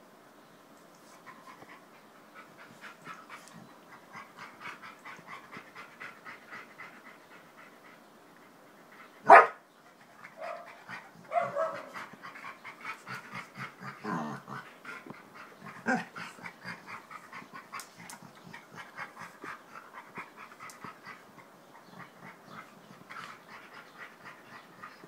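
Two Labradors play-wrestling: quick rhythmic panting, one loud sharp bark about nine seconds in, then more short barks and yips among the panting.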